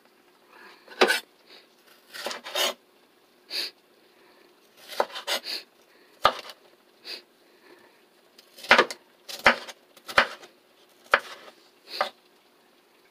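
Kitchen knife slicing a red bell pepper on a wooden cutting board: a dozen or so irregular cuts, each ending in a sharp knock of the blade on the wood, with quiet gaps between.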